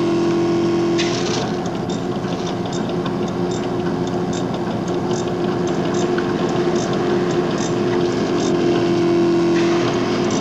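Cellulose insulation blowing machine running steadily, blowing insulation out through its hose in a spraying stream, with a light regular ticking over the drone.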